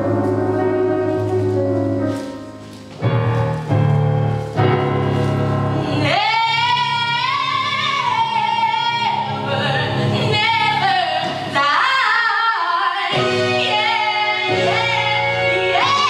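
A woman singing a show tune solo over musical accompaniment. For the first few seconds only the accompaniment plays, with a few sharp accented chords. The voice comes in about six seconds in, holds a long high note, and keeps singing over the accompaniment.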